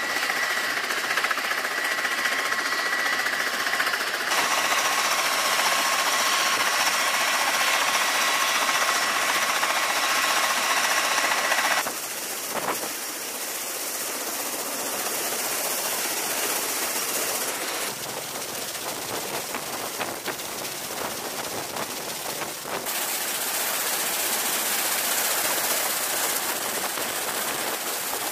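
CMV-22B Osprey's turboshaft engines running with the rotors turning: a steady rushing noise with a high whine. About twelve seconds in the whine drops away, leaving a duller steady rush that shifts abruptly in level a couple of times.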